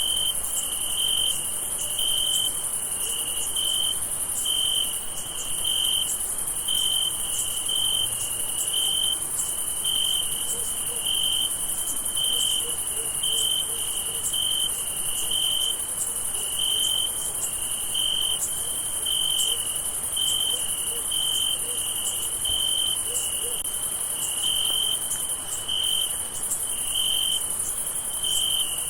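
Night chorus of crickets: a steady, high-pitched trill, with one cricket chirping in a lower pitch about once a second.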